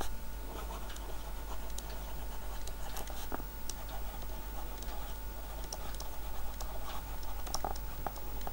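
Stylus writing on a tablet screen: light, irregular taps and short scratches as letters are handwritten.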